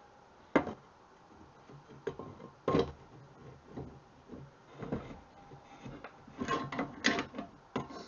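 Steel pedal parts of a B-body Mopar clutch and brake pedal assembly knocking and scraping together as a clutch pedal is worked onto its pivot. Scattered sharp clanks, with a quick run of them about two-thirds of the way through.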